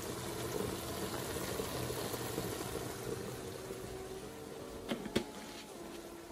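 Steady bubbling hiss of food cooking in pots on a stovetop, with two light clicks about five seconds in as a spice jar is handled.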